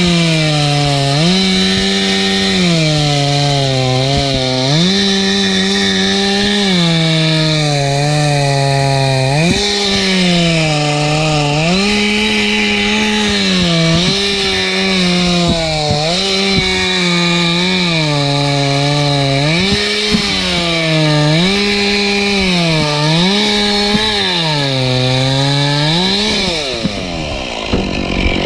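Two-stroke chainsaw cutting oak, its engine speed rising and dropping every two seconds or so as it works through the wood. Near the end the engine winds down.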